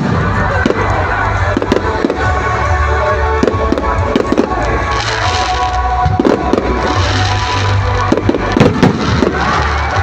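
Fireworks display: aerial shells bursting in a rapid, irregular series of bangs, over loud music playing through loudspeakers.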